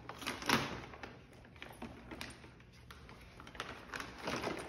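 Gift wrapping paper crinkling and tearing in short bursts, about half a second in and again near the end, with a quieter stretch between.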